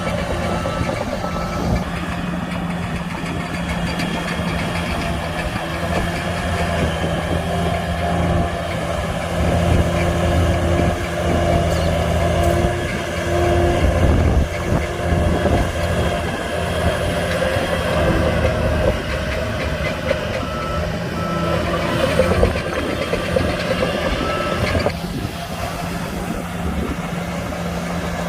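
Heavy diesel engine of earthmoving machinery running steadily, with a reversing alarm beeping about once a second, briefly near the start and again for a few seconds later on.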